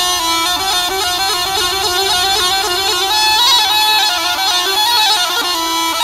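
Bagpipe music: a steady drone under a fast melody with quick ornamented note changes.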